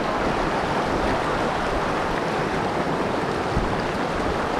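Steady rush of mountain stream water.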